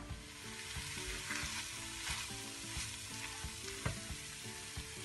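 Fish and onion khageena frying gently over low heat in a non-stick pan, giving a steady soft sizzle, with a faint tap about four seconds in.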